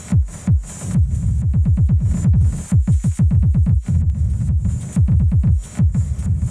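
Elektron Analog Rytm Mk2 analog drum machine playing electronic music: booming kick-drum hits that each drop sharply in pitch, some repeated in fast stuttering runs by heavy delay, under a steady high hiss.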